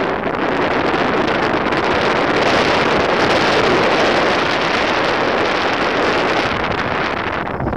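Loud, steady rush of wind noise buffeting the camera microphone from a moving car, with road noise under it. It grows louder about two seconds in and eases off near the end.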